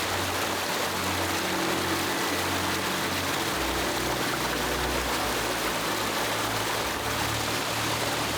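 Steady rush of flowing water from a mountain spring-fed stream or falls.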